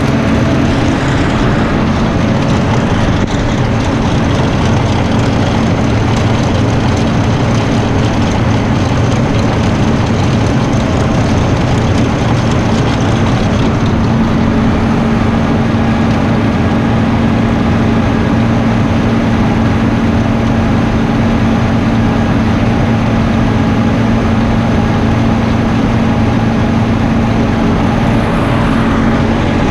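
Large diesel engine of harvest machinery running steadily at constant speed, a loud even drone with a steady low hum.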